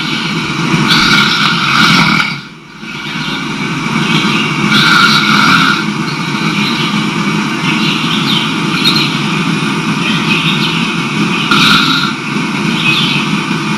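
A man snoring, one rasping snore after another.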